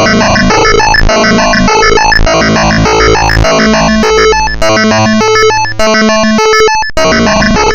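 Loud, harsh computer-generated electronic noise-music from a malware program: a dense, clashing mass of buzzy synthetic tones changing in quick steps. About four and a half seconds in it thins to a few stepping notes over a rapid pulsing, then the dense texture returns near the end.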